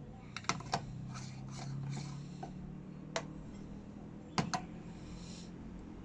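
Espresso portafilter and tamper being handled: scattered light metal clicks and taps while the coffee is readied for tamping, over a low steady hum.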